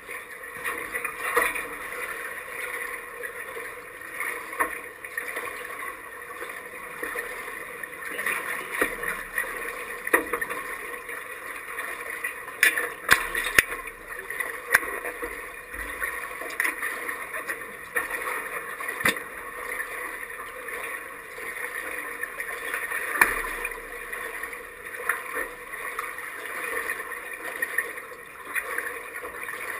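Pool water lapping and splashing right at a half-submerged camera, with whitewater kayaks being capsized and rolled up close by. Scattered sharp splashes and knocks stand out from the steady water noise, the loudest cluster about halfway through.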